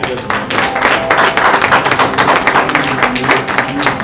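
Audience applauding: many hands clapping densely, starting suddenly and keeping on.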